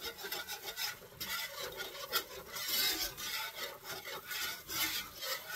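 A wire whisk scraping and rattling against a pan in quick, even, repeated strokes, whisking flour into pan juices to thicken them into a gravy.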